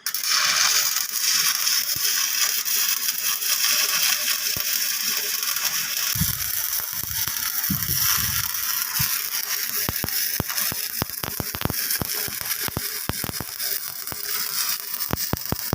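Stick (SMAW) welding arc crackling and hissing steadily as a root pass is run with a 2.5 mm electrode on a horizontal (2G) bevelled plate joint; the arc strikes right at the start, and the sharp crackles grow denser in the second half. A few low thuds come in around the middle.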